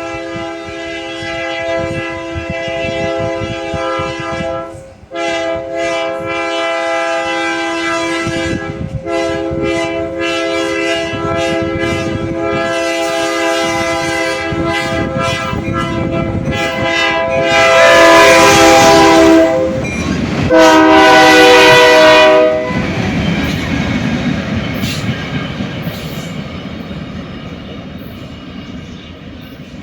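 Freight locomotive's multi-tone air horn, blown in long blasts with two brief breaks. The two loudest blasts come about two-thirds of the way through, as the train passes. Afterwards the train rumbles and clacks over the rails, fading away.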